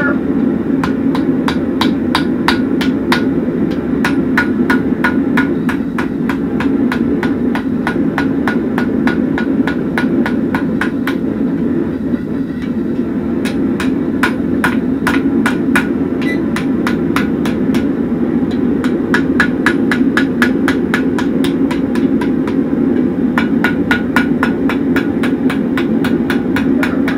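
Blacksmith's hand hammer striking red-hot horseshoe steel on a Hay-Budden anvil in a steady run of blows, about three a second, each with a short metallic ring. A steady low rushing noise runs underneath.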